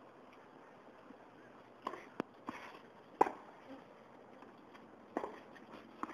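Tennis rally: a tennis ball struck by rackets and bouncing on the court, heard as a series of sharp pops at irregular intervals, about six in all, the loudest about three seconds in.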